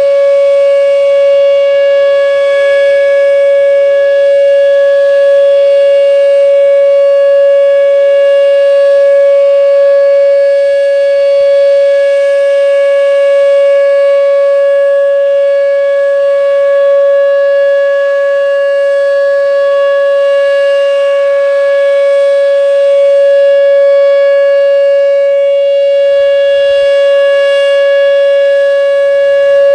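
Whelen WPS-2807 electronic outdoor warning siren sounding its Alert signal: one loud, steady tone at 560 Hz with strong overtones, held without a break.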